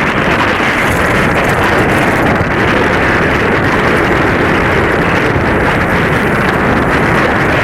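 Steady rush of wind and water while a Hobie Cat 16 catamaran sails, with wind buffeting the microphone.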